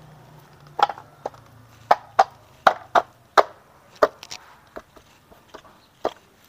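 About a dozen sharp, irregular knocks and clacks of a Yamaha Crypton's aluminium crankcase being handled and pressed together by hand. The loudest knocks come in the first four seconds and get sparser after.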